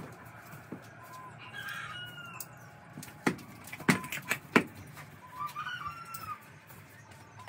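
Chickens clucking in short calls, with three sharp knocks about half a second apart near the middle.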